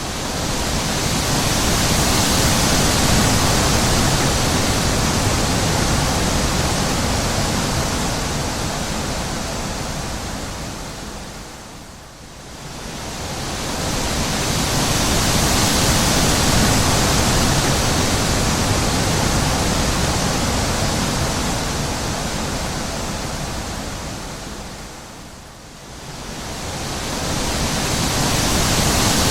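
Wind blowing as a steady rushing noise that swells and fades in long slow surges, dropping almost away twice, about 13 seconds apart.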